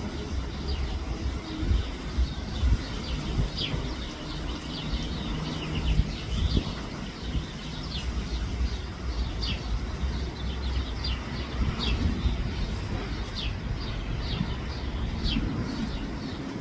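Birds chirping: short, high notes that sweep downward, repeated irregularly, over a low rumble.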